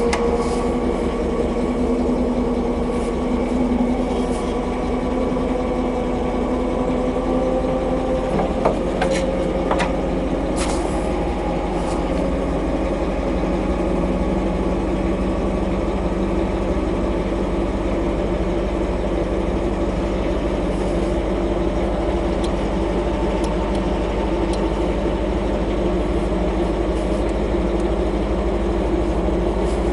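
Alvis Saladin armoured car's Rolls-Royce B80 straight-eight petrol engine idling steadily, heard from inside the hull, its pitch creeping up slowly. A few light clicks about a third of the way in.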